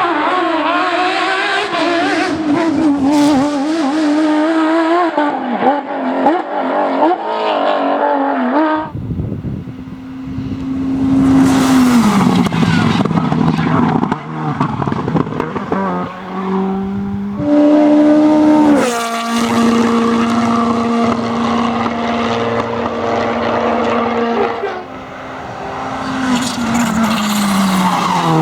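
Rally cars at full speed: a high-revving competition engine whose note wavers up and down under throttle, then after an abrupt change about nine seconds in, engine notes that hold and then step down in pitch several times with gear changes and lifts, with gusts of tyre and road noise as the cars pass.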